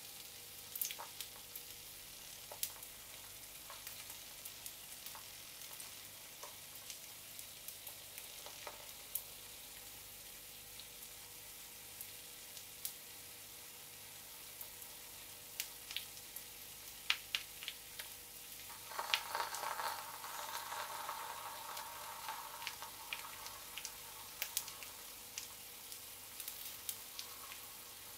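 Egg frying in oil in a small cast-iron skillet: a steady sizzle with scattered sharp pops and crackles. About two-thirds of the way in the sizzle swells louder and denser for a few seconds, then settles back.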